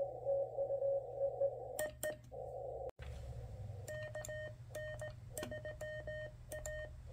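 Morse code (CW) tones from a Venus SW-3C QRP transceiver. First a received CW signal beeps through a narrow band of receiver hiss. After a brief dropout, a cleaner, slightly higher sidetone keys on and off with a sharp click at each element as the operator sends Morse.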